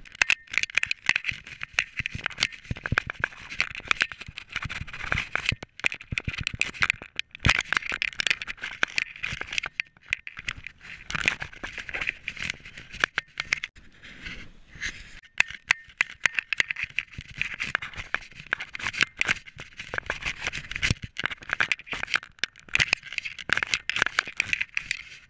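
Specialized Enduro Elite mountain bike rattling and clattering at speed down a rough dirt trail, with rapid sharp knocks from the bumps over a steady rushing hiss.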